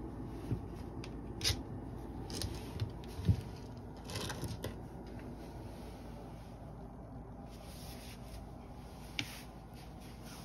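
A cat playing on a wooden floor, its paws and body scuffing and knocking softly against the boards. There are a few short knocks in the first few seconds, the loudest about three seconds in, then a brief rustle around four seconds and one more knock near the end, over a steady low room hum.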